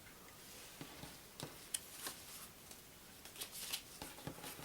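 Faint, scattered clicks and soft rustles of playing cards being handled and laid down on a table.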